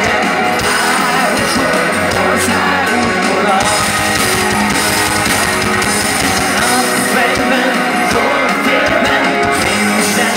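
Rock band playing live, loud and steady, with electric guitar to the fore and no clear lyrics.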